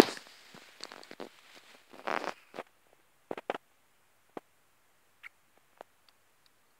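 A hamster grooming on soft fabric: short scratchy rustles and small clicks, with a sharp rustle right at the start and a cluster about two seconds in, thinning to a few faint ticks in the second half.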